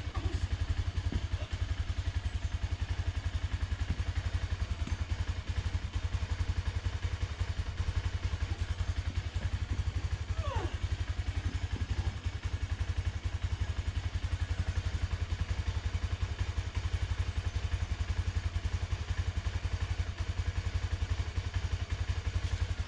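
Honda Dominator 250's single-cylinder engine idling steadily with a rapid, even low pulse.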